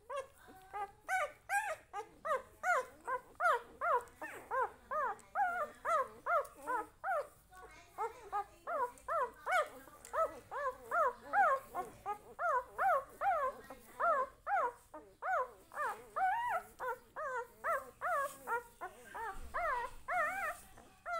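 Newborn puppy whining: a steady run of short, high cries, each rising and falling in pitch, about two or three a second.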